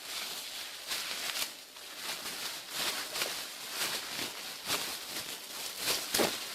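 Plastic bubble wrap being handled, with irregular crinkles and crackles.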